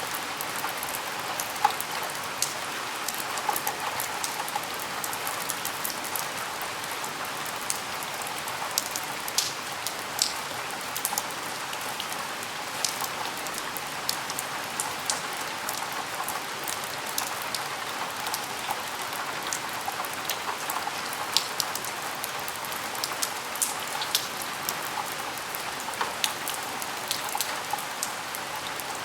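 Steady rain falling, with a constant hiss and many separate sharp drop ticks scattered irregularly on top, as of drops striking a window and its sill.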